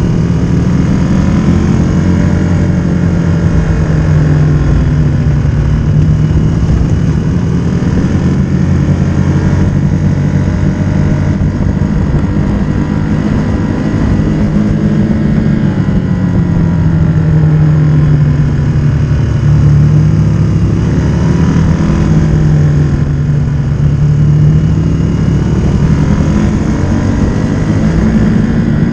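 Motorcycle engine running under way, its pitch rising and falling every few seconds as the revs change, over a steady rush of noise.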